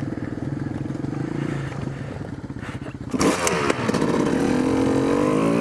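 Kawasaki KX250 dirt bike engine running at a steady idle, then blipped with a sharp burst of noise about three seconds in and revved, its pitch climbing toward the end.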